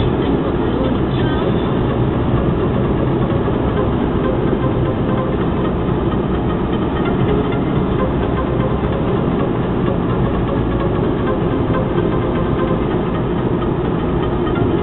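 Steady road noise from inside a Jaguar X-Type cruising on an open country road: tyre noise with a low engine hum, even throughout.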